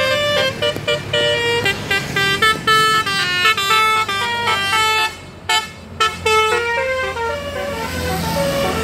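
Bus telolet horn, the multi-tone horn of an Indonesian bus, playing a quick melody of short stepped notes. The tune breaks off briefly about five seconds in, then carries on.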